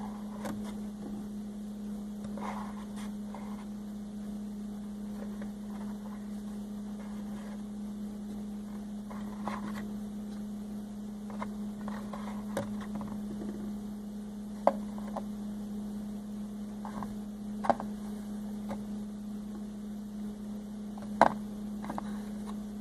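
Small plastic toy figures tapping and clicking as they are set into a plastic toy fridge, with three sharper clicks in the second half, over a steady low hum.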